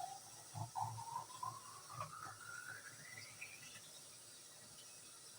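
Glass bottle filling with tap water, the pitch of the filling rising steadily as the bottle fills, until it stops a little under four seconds in.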